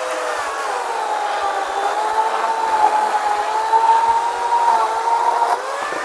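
Small gasoline engine of a wood saw running steadily, its pitch sagging and holding lower as it comes under load cutting through wood, then rising again near the end as the load comes off.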